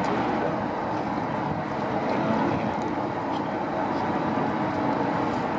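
A boat's engine running steadily, a low even drone with no sudden breaks.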